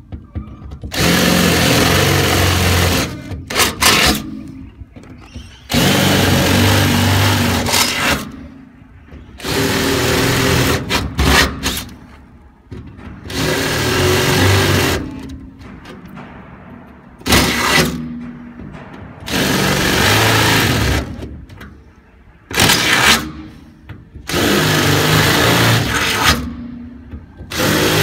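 Power drill with a larger bit enlarging pilot holes in a metal tank wall, run in repeated bursts of one to three seconds, stopping and starting between holes.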